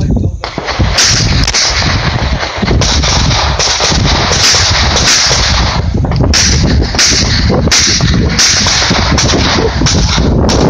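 Pistol shots fired in a fast, uneven string of singles and quick pairs, more than a dozen in all, over a constant loud rushing noise.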